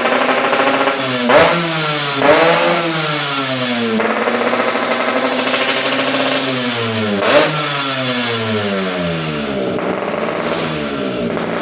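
Yamaha RX-King 135cc single-cylinder two-stroke motorcycle engine being revved, its pitch rising and falling again and again. Three sharp pops stand out, about a second in, at around two seconds and near the end, each followed by a rising rev. These are the slight 'cough' (batuk) that the owner says doesn't matter.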